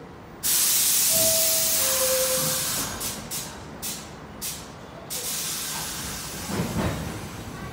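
New York City Subway (1) train at the platform: a sudden loud hiss of compressed air about half a second in, with a descending two-tone door chime over it, then several short bursts of air as the doors close. A low rumble follows near the end.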